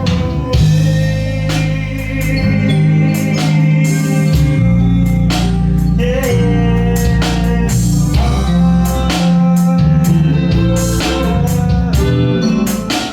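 A small rock band playing a song together: bass guitar, guitar, drums and keyboards, with steady drum hits and held bass notes.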